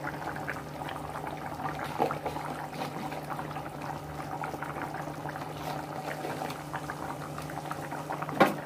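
Dhokar dalna gravy with fried chana dal cakes and potatoes bubbling at a boil in a kadai: a dense patter of small pops over a steady low hum. A sharp knock near the end.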